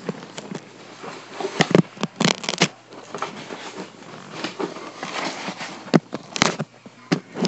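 Handling noise from a phone being moved and gripped: fingers rubbing and knocking against the microphone in an irregular run of scratches and knocks, with louder bumps about 2 seconds in and again near the end.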